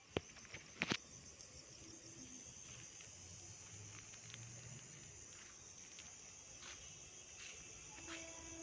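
Crickets chirping faintly and steadily, with a couple of sharp handling clicks about a second in. Near the end a steady low tone begins.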